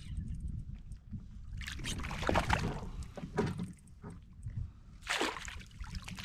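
Water splashing and sloshing at a kayak in several separate swells, over a steady low rumble.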